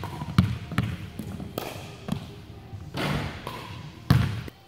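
Basketball being dribbled on a hardwood gym floor: sharp bounces about two and a half a second at first, then more spaced out, and the sound cuts off suddenly near the end.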